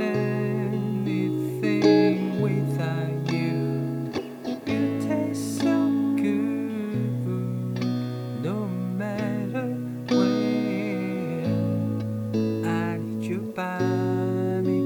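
Guitar chords played through a Wampler Ethereal reverb and delay pedal. A new chord comes every second or two, and each one rings on under the next in a long wash, with a wavering shimmer in the upper notes.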